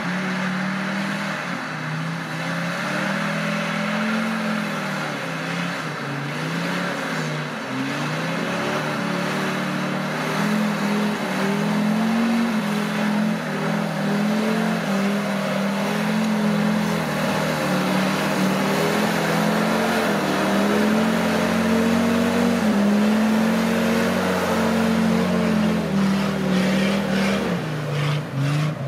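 Off-road 4x4's engine running under load, its pitch rising and falling as the throttle is worked, with a brief dip near the end.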